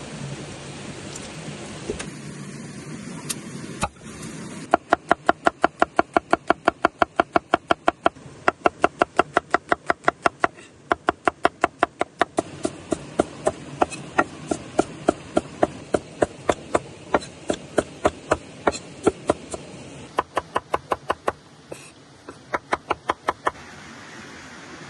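Knife chopping rapidly on a wooden board: sharp knocks about five a second, in runs of a few seconds with short pauses, starting a few seconds in.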